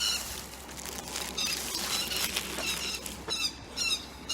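Birds calling: a rapid series of short, harsh notes starts about three seconds in, over a rushing noise of wind on the phone's microphone.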